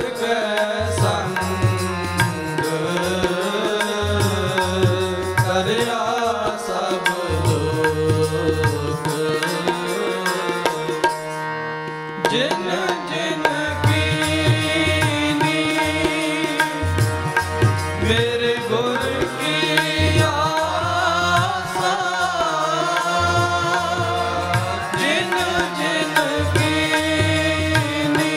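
Sikh kirtan: a man singing a Punjabi shabad over a harmonium's steady chords, with tabla keeping a rhythm. The drum drops out for a few seconds near the middle, then comes back in.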